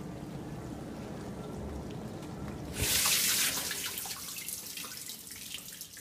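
Samsung dishwasher running its wash, a low steady hum with water swishing inside the tub. About three seconds in the door is opened mid-cycle: a click, a short loud rush of spray, then water dripping and splashing in the tub as the wash stops.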